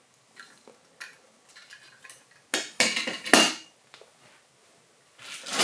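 Small plastic Mini-Z RC car chassis with wheels being set down on a hard tabletop: a few light ticks, then three sharper clacks about three seconds in. A short rustle near the end.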